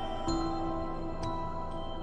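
Slow background music of held, sustained notes, with a new note coming in about a third of a second in and again after about a second.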